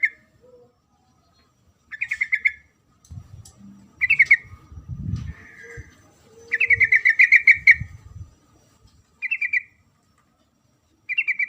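Female yellow-vented bulbul calling to attract a male: short, fast, bubbly chattering phrases repeated about every two seconds, one lasting about a second and a half. A low rumble runs underneath in the middle.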